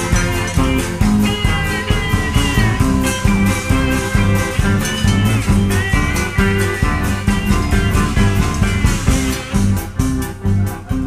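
Band playing an instrumental passage between verses: a lead guitar line with bending notes over bass and a steady beat.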